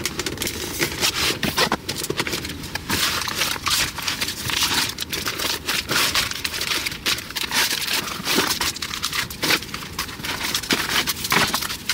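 Plastic meal-kit packaging rustling and crinkling in irregular bursts as the sealed food packs are handled and sorted.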